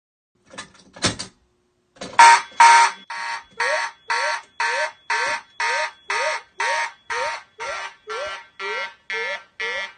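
Fire alarm horns sounding in march-time pulses, about two blasts a second, starting about two seconds in after a couple of short clicks; the first two blasts are the loudest.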